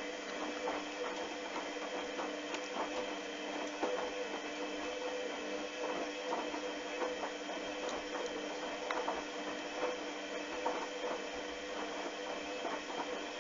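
A steady mechanical hum with scattered clicks and rattles, which stops abruptly at the very end.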